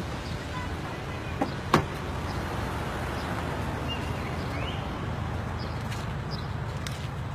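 Steady low rumble of an idling car, with two sharp knocks close together about a second and a half in.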